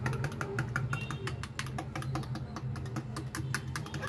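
Metal spoon clinking rapidly against the inside of a glass tumbler, beating an egg into a milk, yeast and sugar mixture: a steady run of quick clicks, several a second.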